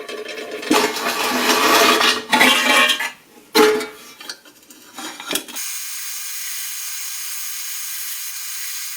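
Loose metal parts clinking and clattering against each other in irregular strikes. A little past halfway the clatter stops and a steady hiss takes over.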